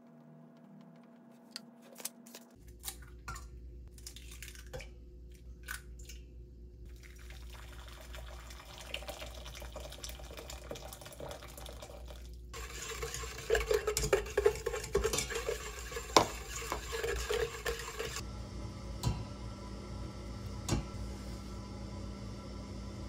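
Kitchen baking sounds: water poured from a kettle into a glass mixing bowl, then a spatula clinking and scraping against a stainless-steel bowl as cake batter is mixed.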